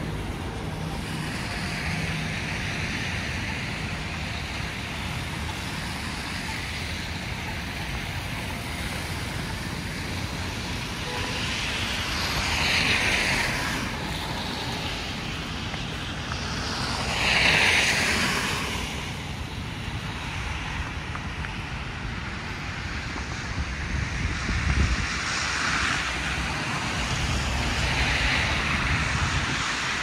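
Street traffic in falling snow: a steady background of passing cars, with tyre hiss swelling as cars go by, twice clearly at about twelve and seventeen seconds in, then again near the end. Wind buffets the microphone underneath.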